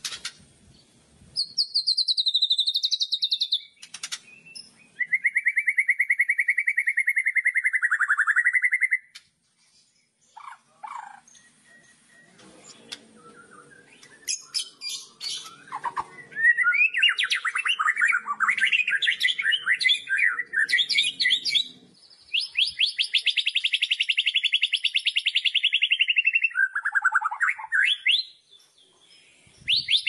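White-rumped shama (murai batu) singing loud kretekan: long, fast, rattling trills of several seconds each, with thin high notes above them. About a third of the way in, the trills give way to scattered short chirps for several seconds, then long rattling trills resume and run until near the end.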